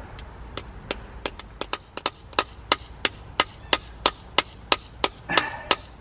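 Small hammer head of a pocket multitool striking a dry dogwood peg to drive it into a wooden stump: quick, even taps, about three a second, which grow sharper and louder after about two seconds.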